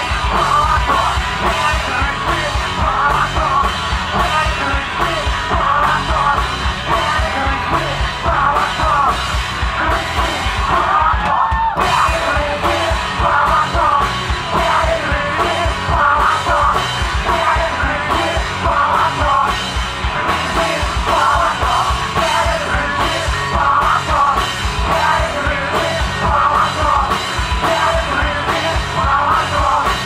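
Live punk-style rock band playing loud: electric guitars, bass and drum kit keeping a steady beat, with shouted, sung vocals over the top.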